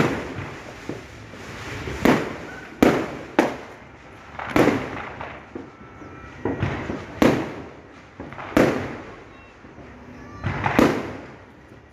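New Year fireworks exploding: about eight sharp bangs at uneven intervals, each trailing off briefly.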